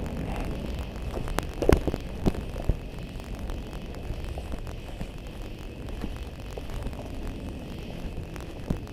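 Footsteps and a few sharp knocks, loudest about two seconds in, over a steady low rumble and a faint high steady hum.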